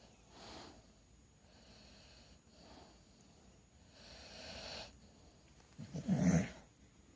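Bulldog snoring in its sleep: a few soft, breathy snores, then a much louder, deeper snore about six seconds in.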